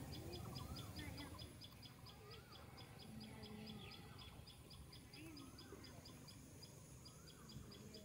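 Faint outdoor ambience: a short, high chirp repeats steadily about five times a second, with faint wavering calls lower down over a low background rumble.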